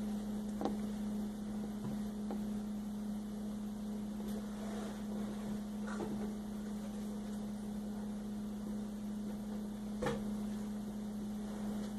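Steady electrical hum, with a few faint clicks and taps of small plastic toy pieces being handled, the clearest about ten seconds in.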